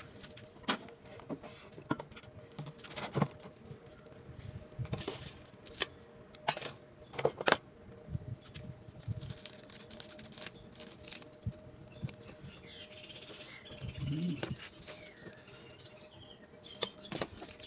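Irregular clicks, knocks and rustling of hands handling the cooked banana-leaf parcel and its plate, with the stiff leaf crackling as it is opened, over a faint steady hum.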